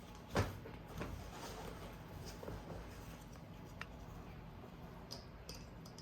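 Handling of a child car seat's harness: one sharp click about half a second in, then a few faint clicks and taps amid low rustling.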